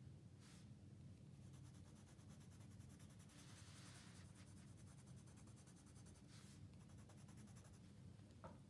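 Brown colored pencil scratching faintly on sketchbook paper in quick, short back-and-forth shading strokes, which stop about seven seconds in.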